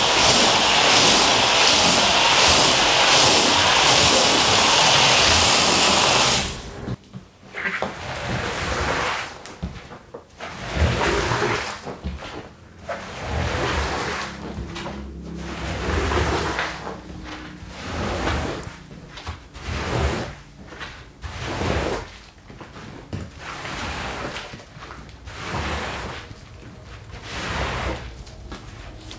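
Water spraying onto a wet wool rug, a steady loud hiss for about six seconds. Then a squeegee is pulled across the soaked rug again and again, a wet swish roughly every two seconds as it pushes water and foam off the pile.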